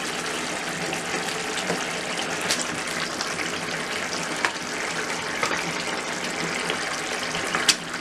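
Thick spiced yogurt gravy bubbling and sizzling steadily in a pot, with a few sharp clicks of a spatula against the pot as the mutton leg pieces are laid in.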